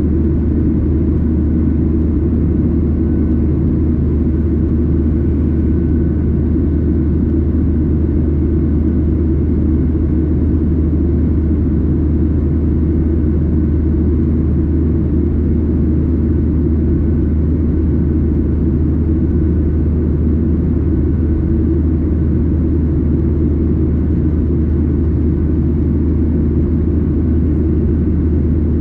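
Steady, loud drone inside the cabin of a Boeing 737-800, from its CFM56 jet engines and the airflow past the fuselage. The low rumble stays even, with faint steady tones above it.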